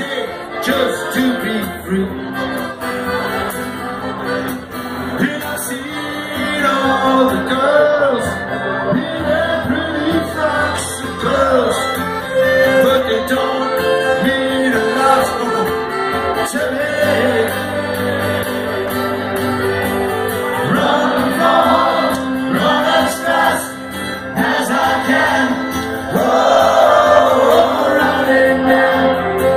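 Live band playing a song with a lead vocal, sustained instrument notes under the sung lines, loud throughout.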